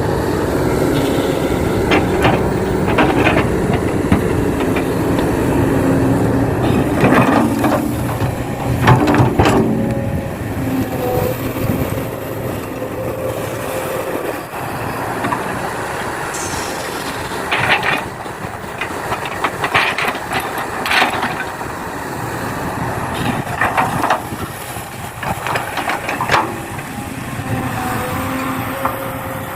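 Radio-controlled model excavator loading soil into a dump truck: steady mechanical running with a faint whine, broken by bursts of scraping and clattering as dirt is dug and dropped.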